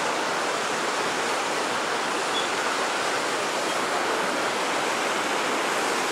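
Steady rushing of the South Esk River running over the rocks in Cataract Gorge, an even, unbroken noise of fast water.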